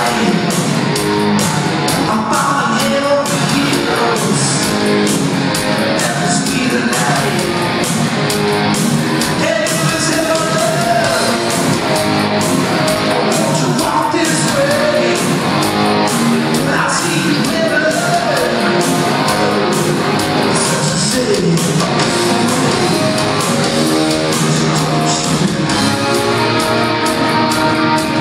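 Hard-rock band playing live in a large hall, with distorted electric guitars, a steady drumbeat and a lead singer.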